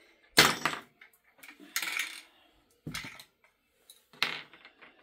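Hard plastic and metal parts of a cat exercise wheel knocking and clattering as they are handled during disassembly: a loud knock about half a second in, then scraping and two lighter knocks.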